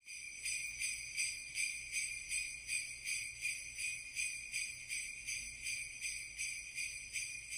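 Sleigh bells jingling, shaken in a steady beat a little under three times a second.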